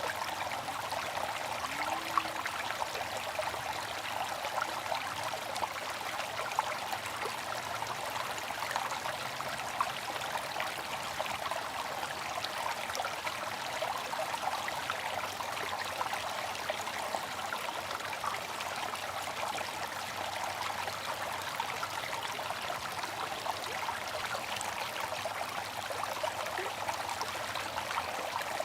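Bamboo water fountain trickling and splashing steadily, with small drips and splashes scattered through an even flow of water.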